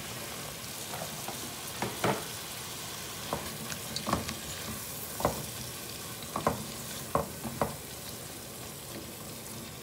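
Sliced onions sizzling in hot oil in a nonstick pot while being stirred with a spatula. The spatula knocks and scrapes against the pot at irregular moments, about nine times.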